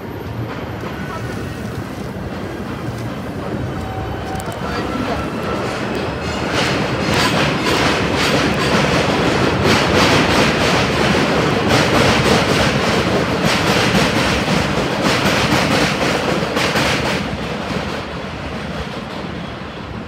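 Subway train running on the elevated steel structure overhead, its wheels clacking over the rail joints; the noise swells about a third of the way in and eases off near the end.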